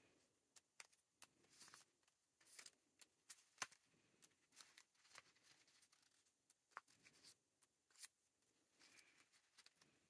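Faint rustling and crinkling of paper cutouts being slid into a clear plastic bag, with scattered small clicks and taps; one sharper tick comes a little over three and a half seconds in.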